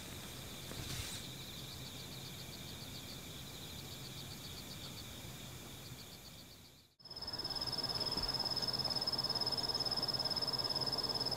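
Insects chirping faintly in a quick, even pulse. After a sudden break about seven seconds in, a louder, steady high-pitched insect trill takes over.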